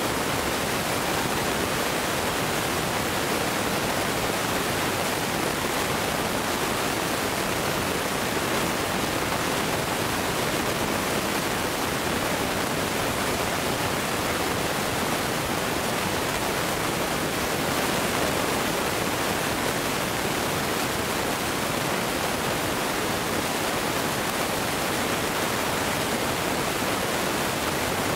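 Steady, even rushing hiss that does not rise, fall or break, with no bangs or bursts in it.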